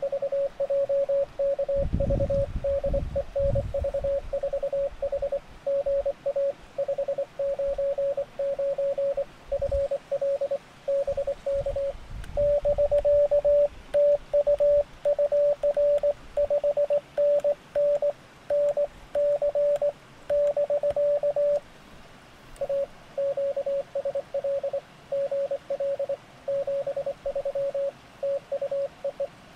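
Morse code tones from a Recent RS-978 transceiver during a CW contact. The other station sends a signal report, then the operator's own paddle-keyed sidetone comes in slightly higher and louder for about nine seconds with his reply. After a short gap the other station sends its sign-off. A few low rumbling thumps sit under the tones around two and ten seconds in.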